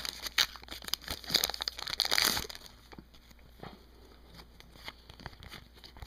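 Foil wrapper of a hockey card pack crinkling and tearing as it is opened, for about the first two and a half seconds. After that it goes much quieter, with only a few faint ticks.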